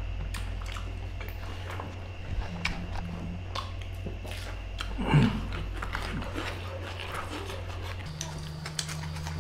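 Two people eating curry and rice with their hands: chewing, biting and small clicking mouth noises as fingers work the rice, over a steady low hum. About five seconds in comes a short falling vocal sound, the loudest moment.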